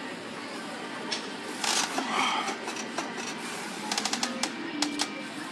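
Plate-loaded leg press machine clicking and rattling in quick runs as the heavily loaded sled moves through reps.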